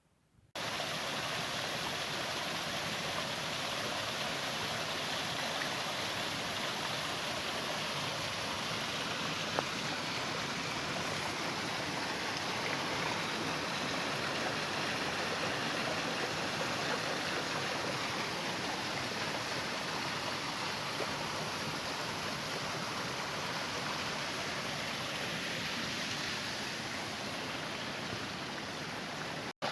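Running water of a stream, a steady rushing with no break, starting abruptly and cut off just before the end.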